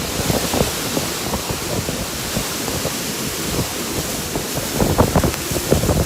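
Storm: heavy rain and gusting wind, with the wind buffeting the microphone in irregular thumps that grow stronger near the end.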